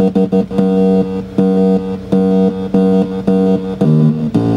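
Homemade punched-paper tone instrument built into a DR500 fish finder, with a tone generator modelled on the early Bally pinball sound card, playing a sequence of electronic notes. A fast run of short notes gives way about half a second in to slower, longer notes, about two a second, and the pattern shifts lower near the end.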